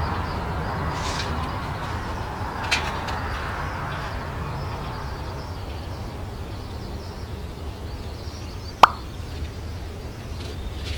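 Steady background noise with a small knock a few seconds in and one sharp click near the end.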